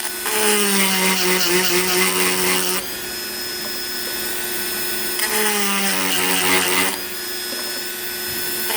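Dremel rotary tool with a cone-shaped grinding stone sharpening chainsaw chain teeth. The motor runs with a steady whine, and twice, each time for about two seconds, its pitch drops and it grows louder as the stone bites into a cutter tooth.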